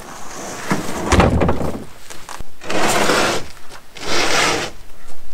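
Canoe hull set onto a metal utility trailer with a heavy knock, then pushed along it in two long scrapes of hull against the trailer.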